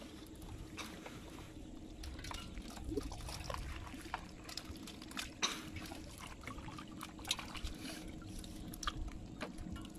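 A hand sloshing in water in a plastic bucket with small fish: irregular small splashes and drips, with a faint steady hum underneath.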